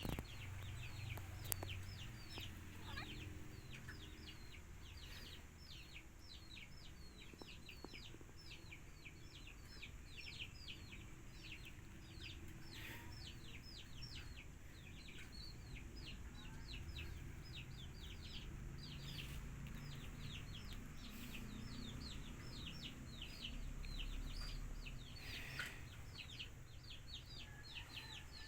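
Bird chirping: a long unbroken run of short, high, downward-sliding peeps, about three a second.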